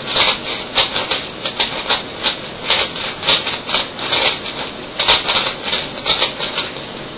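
YJ 3x3 speed cube being turned fast by hand, its plastic layers clacking in quick, irregular turns, several a second. The cube is unlubricated and feels dry and scratchy.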